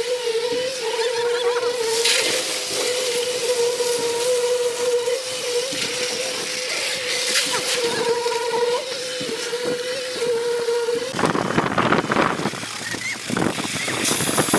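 Concrete pumping machinery running with a steady droning hum. About eleven seconds in, the hum gives way to a louder, rougher rushing noise with irregular knocks.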